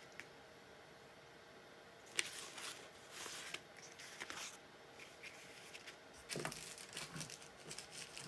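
Fabric scraps rustling and sliding as they are picked up and laid out over a paper pattern: soft, intermittent handling noises with a small tick about two seconds in.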